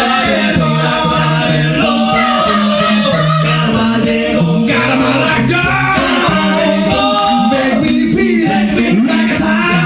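Four-man a cappella group singing in close harmony, with a sung bass line stepping between low notes under the upper voices.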